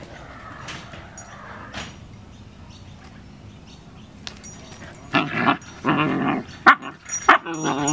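Two Siberian husky puppies play-fighting, breaking out into several short, loud barks and yelps in the second half.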